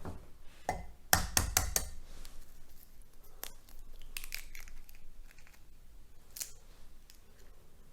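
A hen's egg being cracked and its yolk separated: a quick cluster of sharp shell taps about a second in, then faint scattered clicks and small handling noises.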